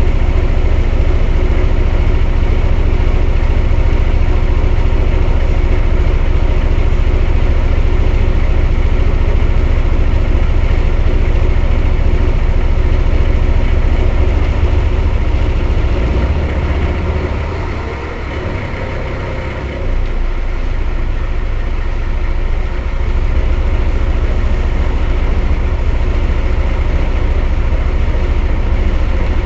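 Mercedes-Benz O 405 N city bus engine running with a steady heavy rumble. About sixteen seconds in it eases off and goes quieter for a few seconds, then picks up again abruptly about twenty seconds in.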